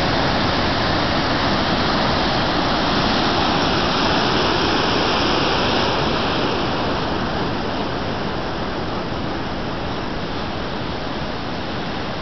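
Ocean surf: large waves breaking and whitewater rushing below the pier, a steady rush of noise that eases a little after about six seconds.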